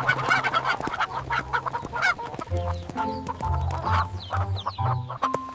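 A flock of chickens clucking in many short, quick calls over background music with held low notes.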